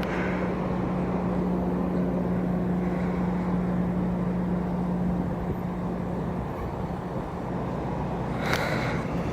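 Steady low outdoor rumble with a constant droning hum that weakens a little past the middle; a short higher sound comes near the end.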